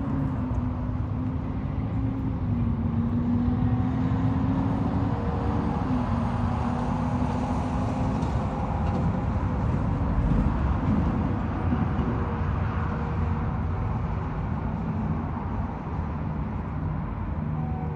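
Finger Lakes Railway freight train rolling slowly through a road crossing: a steady low rumble with a wavering drone that stops about eight seconds in.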